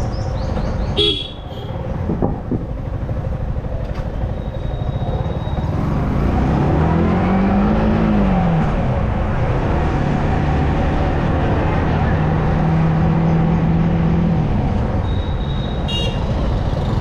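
Yamaha R15M's single-cylinder engine running under way. It revs up and back down, then holds a steady pitch for a few seconds. Short horn toots sound about a second in and again near the end.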